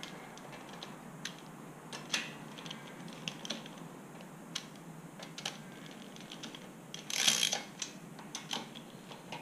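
Hand ratchet wrench clicking in short runs as the camshaft tower nuts on a Porsche 911 cylinder head are spun down by hand to take up the slack before torquing. There is a louder flurry of clicks about seven seconds in.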